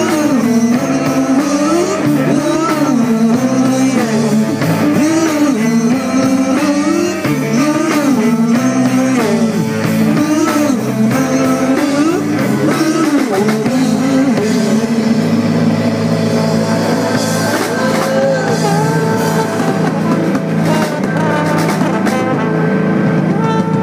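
Live rock band playing with electric guitars, bass guitar, drum kit and trombone. A melodic lead line bends up and down over the band for about the first fourteen seconds, then the music settles into steadier held notes.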